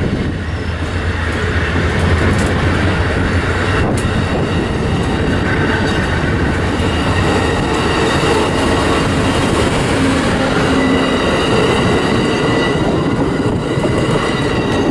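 Amtrak Silver Star passenger cars rolling past at speed: a loud steady rush of steel wheels on the rails. Thin high squealing tones join in over the second half.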